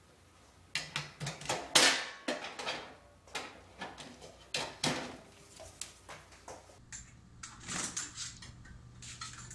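A poodle rummaging on a kitchen counter, its nose and paws knocking and rattling hard objects there: a quick run of sharp clicks and clatters, the loudest about two seconds in, fading out after about six seconds.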